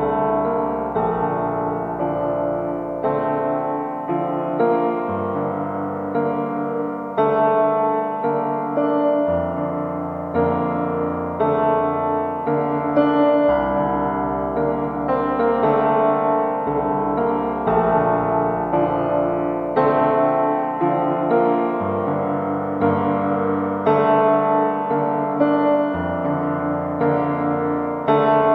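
Background music: a slow piano piece with sustained chords over a bass line that shifts every few seconds.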